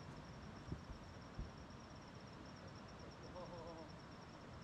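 A cricket chirping in a fast, even pulse over faint steady background noise, with two soft low thumps about a second in.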